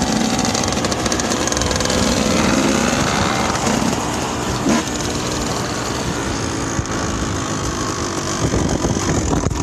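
Small dirt bike engines running as the bikes ride, their pitch rising and falling with the throttle. There is a brief knock a little before halfway.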